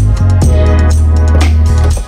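Background music with a deep sustained bass, keyboard chords and a steady drum beat.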